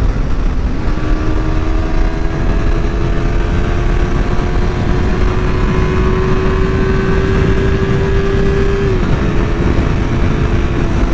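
Motorcycle engine running at a steady cruise, its note climbing slowly for several seconds and then dropping a little about nine seconds in, under a heavy rush of wind and road noise.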